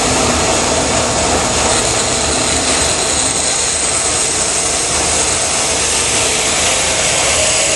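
Vertical bandsaw with a half-inch blade running steadily while cutting a curve in a small piece of wood.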